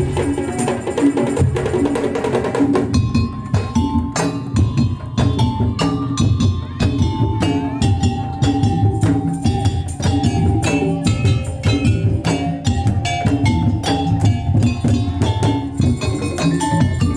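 Madurese tong-tong (daul) music: wooden slit-drum knocks and drums beat a fast rhythm under a melodic line of held notes. The sharp knocking and the melody come in about three seconds in.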